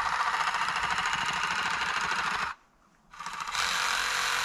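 Reciprocating saw (Sawzall) cutting pine lumber with a steady, fast buzz. It stops about two and a half seconds in, then starts again half a second later and runs on.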